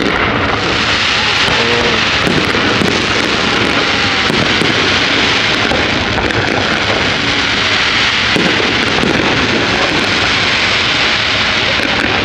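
Fireworks display bursting and crackling without a break, a dense loud crackle over a low rumble.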